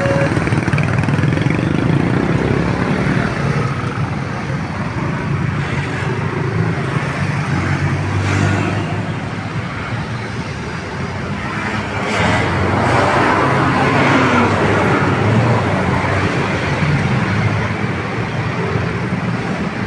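Road traffic pulling away across a railway level crossing just after the barriers lift: a mix of motorcycle and car engines and tyre noise. It grows louder about twelve seconds in as larger vehicles pass close.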